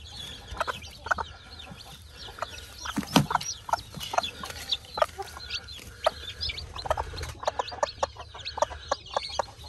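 Chickens clucking, many short calls close together, with a louder one about three seconds in.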